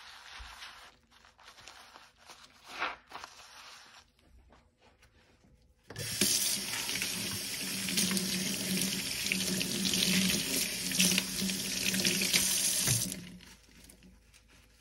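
Faint sponge scrubbing at first. About six seconds in, a kitchen faucet is turned on and water runs steadily into a stainless steel sink for about seven seconds, then is shut off near the end.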